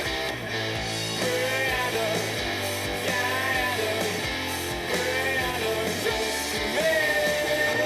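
Rock music with guitar played back through an Akkord 201 stereo amplifier and its speakers, picked up by a camera's built-in microphone.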